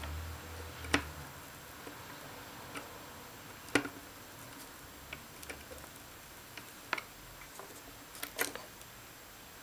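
Scattered sharp little clicks and taps, about half a dozen spread unevenly, the loudest a little before the middle, as a soldering iron and a small circuit board with bristling LED leads are handled during soldering. A short low hum sits under the first second or so.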